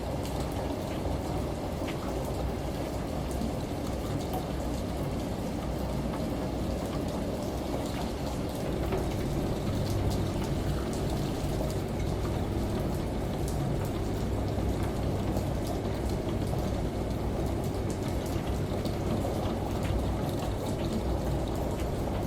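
Steady blended household water ambience: a low machine hum under continuous pattering and sloshing water, without pauses or sudden changes.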